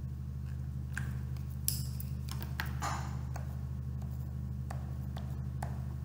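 Faint scattered ticks and short scratches of a stylus writing a signature on a Topaz T-S460 electronic signature pad, over a steady low hum.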